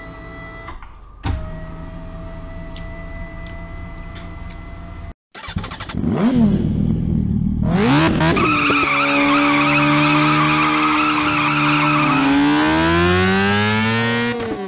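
Motorcycle engine sound effect for an animated sport bike. After a steady hum and a brief cutout about five seconds in, the engine revs up and down, holds at high revs under a wavering high screech, then revs up again near the end.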